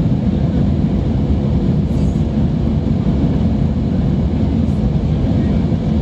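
Steady, loud low rumble of airplane cabin noise in flight, heard from inside the cabin at a window seat.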